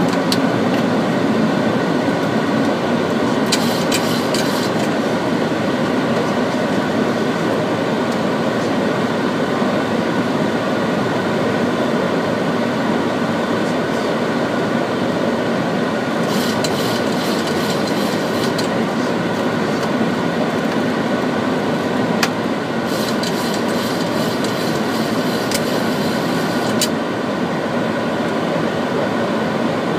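Steady flight-deck noise of a Boeing 737-800 on approach: an even rush of airflow and engine noise with several steady hum tones in it, and a few short patches of high crackle.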